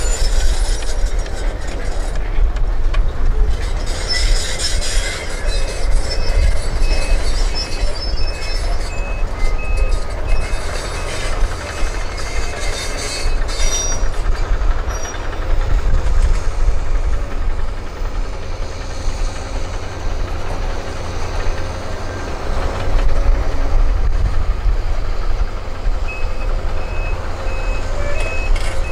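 Hydraulic excavators' diesel engines running under load with a steady rumble. A reversing alarm beeps in even pulses from about five seconds in to about twelve, and starts again near the end.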